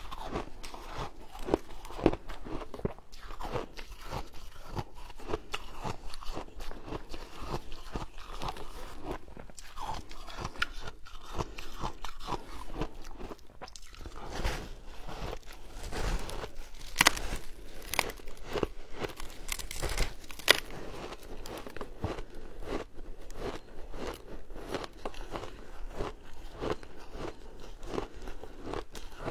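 A person biting and chewing a block of frozen shaved ice, with a continuous run of crisp, crackling crunches. A few louder bites stand out past the middle.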